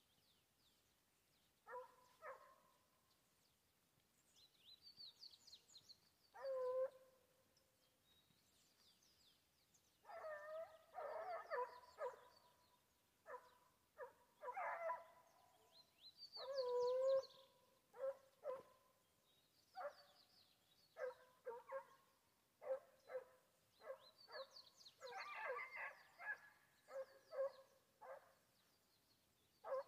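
Foxhounds baying faintly from far off, trailing a wild boar. Drawn-out bays come first; in the second half they turn to quicker, clipped barks, about one or two a second. Thin bird chirps sound now and then above them.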